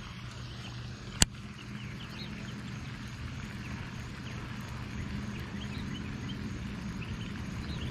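Outdoor ambience with a steady low hum and faint scattered chirps. One sharp click sounds about a second in.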